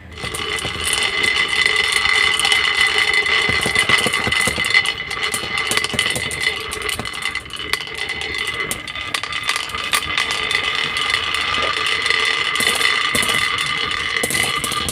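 Marbles rolling and clicking along a toy marble run, over the steady whine of a small motor driving the run's marble lift.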